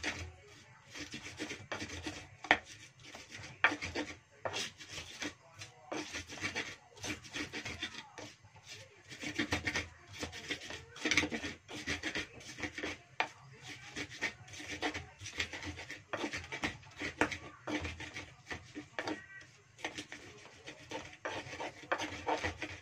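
Ulekan pestle crushing and grinding a spice paste of shallots, garlic and chillies in a small cobek mortar. Irregular scraping rubs with frequent sharp knocks of the pestle on the mortar, worked slowly.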